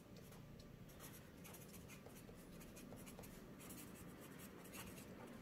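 Pen writing on paper: faint, quick scratching strokes as a word is written out.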